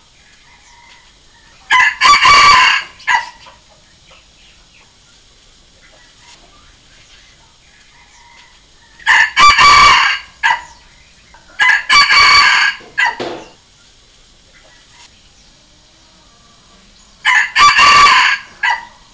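A red junglefowl rooster crowing four times, each crow short and clipped, with long pauses between the first and second and before the last.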